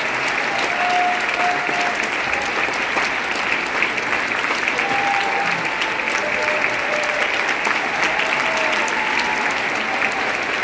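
Dense, steady applause from a large audience, many hands clapping at once.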